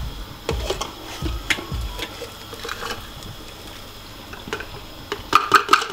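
Plastic ice-cream tub squeezed and knocked against a plastic blender beaker to get the ice cream out without a spoon. Scattered dull thumps and clicks come first, then a fast run of taps near the end.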